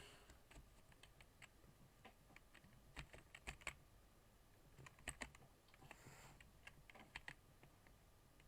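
Faint typing on a computer keyboard: scattered key clicks, with short bursts of several quick keystrokes about three seconds in and again about five seconds in.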